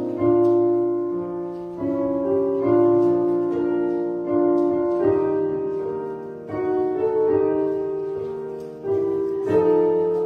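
Piano playing a slow, sustained hymn-like piece, chords struck about once a second and left to ring.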